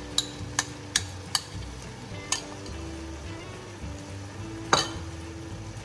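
Onion-tomato masala sizzling gently in a stainless steel pan, with a metal spoon knocking sharply on the pan and bowl about five times in the first couple of seconds and once more, louder, near the end.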